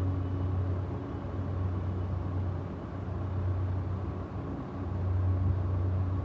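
Low steady rumble with a hum, swelling and easing over a few seconds.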